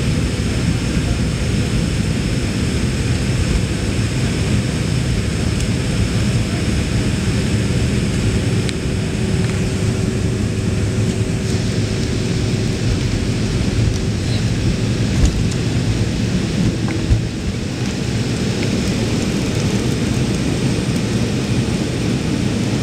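Jet airliner on its takeoff roll and liftoff, heard from inside the cabin: a loud, steady rumble of engines at takeoff power and wheels on the runway. Two sharp thumps come about two-thirds of the way through.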